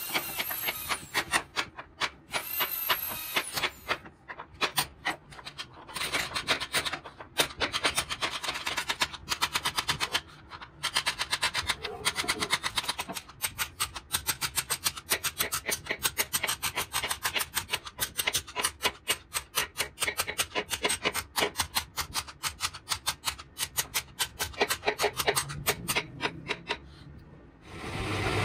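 Wood being abraded by hand: rapid back-and-forth scraping strokes, several a second, broken by a few short pauses.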